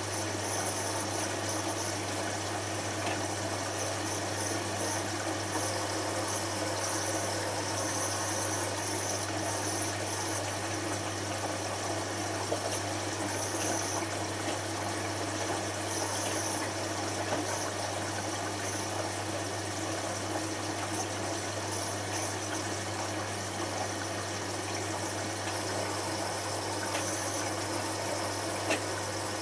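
Hotpoint HF8B593 washing machine's drain pump running steadily, with a constant low hum, as water is pumped out during the synthetics rinse and spin.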